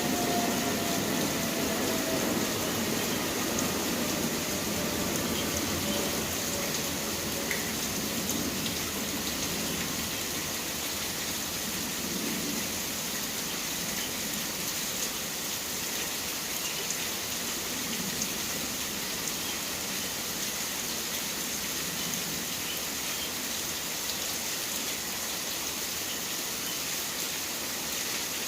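Steady rain falling, an even hiss throughout, with faint tones that slide down in pitch and fade during the first few seconds.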